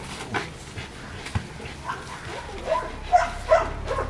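Rottweiler giving short excited whines and yips as it jumps at a spring pole toy, the loudest a quick pair of high calls near the end. A couple of short knocks come earlier.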